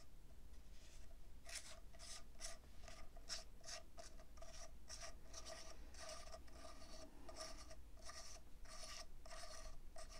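The threaded end cap of an SWR Warlock 2 .22 suppressor scraping faintly as it is unscrewed from the tube, a short rasp with each twist, about two a second, starting about a second and a half in.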